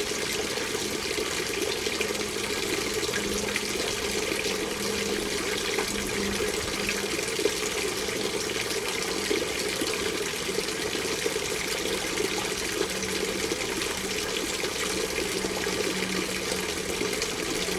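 Water steadily falling and splashing from a tabletop-size garden waterfall fountain's curved wall into its basin, with a faint low hum coming and going.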